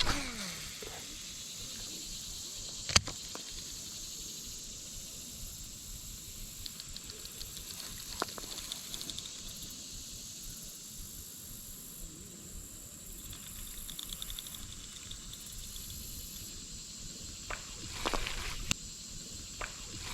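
Steady high-pitched insect chorus, with a few sharp clicks: one about three seconds in, another about eight seconds in, and a cluster near the end.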